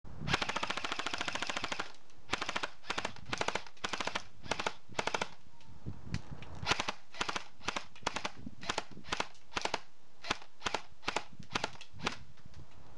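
Airsoft M4 rifle firing a rapid full-auto burst of about a second and a half, then a run of separate shots, two or three a second.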